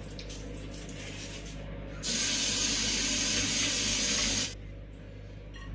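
A steady hiss that starts suddenly about two seconds in and cuts off sharply about two and a half seconds later, over a low background hum.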